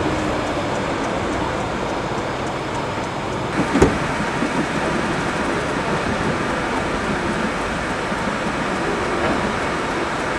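Coaches of a steam-hauled passenger train rolling past, with a steady rumble of wheels on the rails and one sharp knock about four seconds in.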